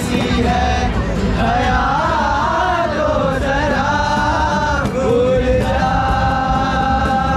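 Acoustic guitars strummed while a male singer and a group of voices around him sing a melody together, ending on a long held note.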